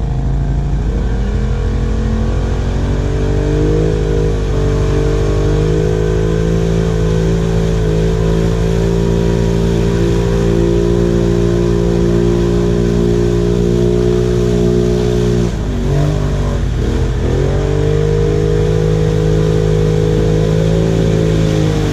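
ATV engine running under steady throttle: its pitch climbs over the first few seconds and holds, dips briefly as the throttle is let off about two-thirds through, then picks back up and holds again.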